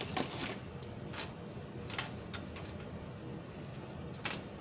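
Square pretzels set down one by one on a metal sheet pan: about five light, irregularly spaced clicks over a low steady hum.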